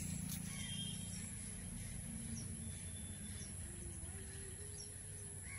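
Steady high-pitched chirring of crickets, with a few short bird chirps, over a low steady rumble.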